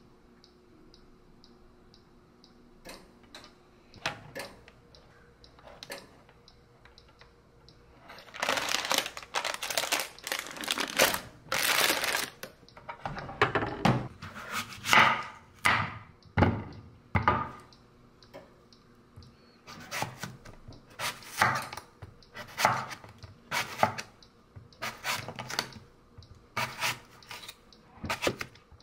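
A large kitchen knife slicing through an apple and knocking on a wooden cutting board, one cut about every second through the second half. A stretch of loud rustling comes about eight seconds in, before the cutting starts.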